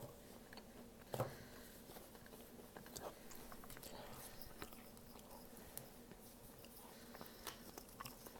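Faint chewing of a Pop-Tart: scattered small mouth clicks and crunches, with one short louder sound about a second in.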